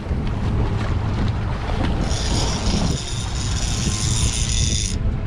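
A conventional fishing reel's drag buzzing with a high-pitched whine from about two seconds in as a hooked fish pulls line off, stopping about a second before the end. Wind rumble on the microphone runs underneath.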